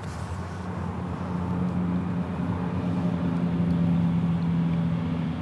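A distant engine hum with a steady low pitch, growing louder toward the middle and easing off near the end.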